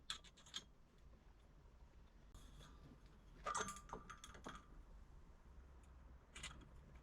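Faint clicking and tapping of small objects being handled: a few quick clicks at the start, a louder run of clicks and rattles with a brief squeak around the middle, and one more short patch of clicks near the end, over quiet room tone.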